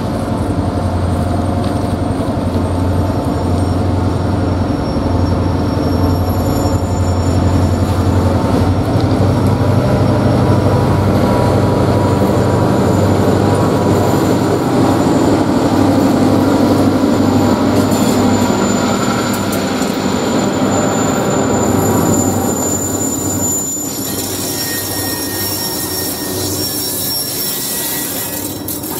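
Diesel freight locomotives, led by blue BNSF 2042, approaching and passing close by, their engines running with a steady low rumble that peaks as they go past. About two-thirds of the way through, covered hopper cars roll past with high-pitched wheel squeal.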